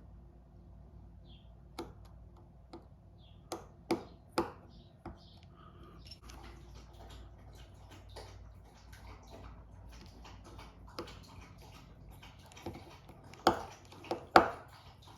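Scattered small clicks and taps of tools and phone parts being handled during a phone repair, with a few louder knocks near the end.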